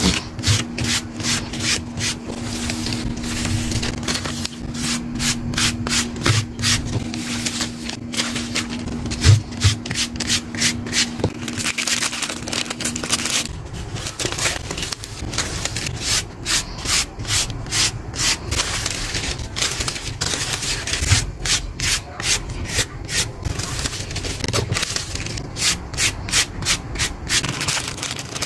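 Rhythmic rubbing strokes on paper, a few a second, with pauses between runs. A steady low hum underneath stops about halfway through.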